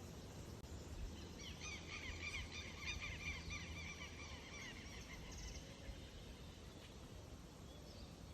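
A bird calling: a fast run of rapid repeated chirps for about four seconds, then stopping, over a steady low rumble of outdoor background noise.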